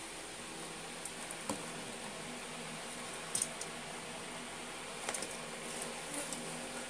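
Fingers handling pieces of cooked chicken in a stainless-steel bowl: soft squishes and a few light clicks, over a steady low hum.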